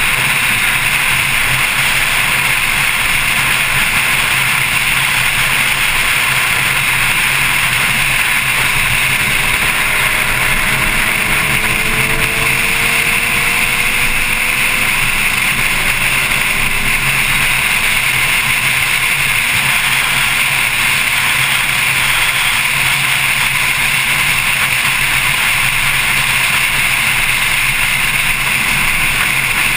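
Steady rush of wind and road noise from a Porsche 911 Carrera S driving at speed, heard through a camera mounted on its front lid, with the car's drivetrain running underneath. A few faint rising and falling tones come and go about a third of the way in.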